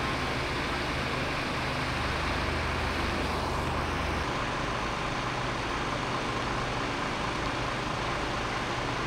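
Steady drone of idling fire-engine diesel engines with an even hiss over it; the low rumble shifts about four seconds in.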